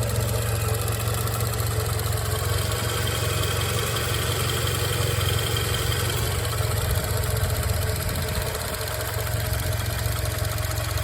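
2005 Toyota Camry engine idling with a clunking knock that sounds like rod knock or piston slap but comes from a failing water pump bearing. A faint high whine runs for a few seconds in the middle.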